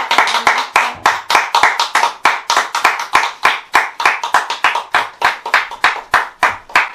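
A small audience clapping in applause, a quick, even run of about five claps a second.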